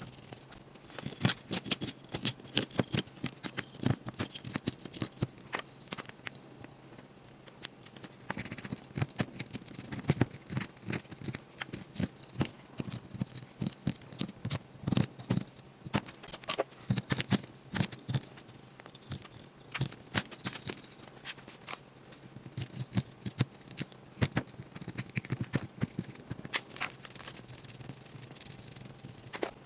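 Irregular scraping and rubbing with many small clicks and taps, like a digging tool scratching and chipping at the plaster block of a toy gemstone excavation kit.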